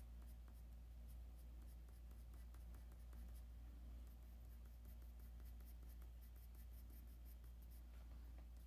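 Faint scratching of a Faber-Castell coloured pencil on paper, many repeated short strokes that stop shortly before the end, over a steady low hum.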